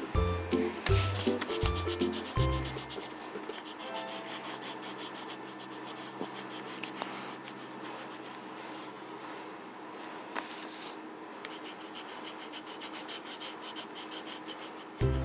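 Background music with a pulsing bass for the first couple of seconds. Then a coloured pencil scratches on paper in quick back-and-forth shading strokes.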